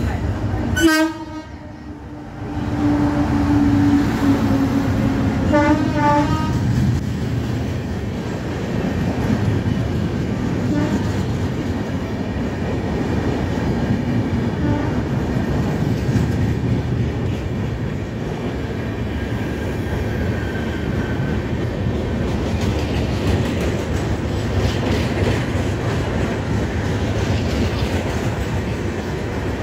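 Indian Railways passenger train horn blasts about a second in and again a few seconds later. Then comes the steady rumble and wheel clatter of coaches rolling along the platform track.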